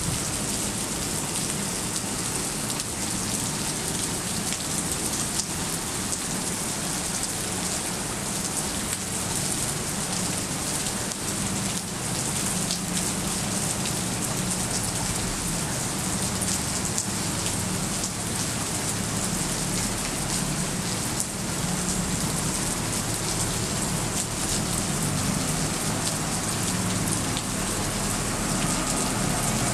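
Heavy rain falling steadily on wet pavement: a constant hiss dense with fine drop ticks, with a low rumble underneath.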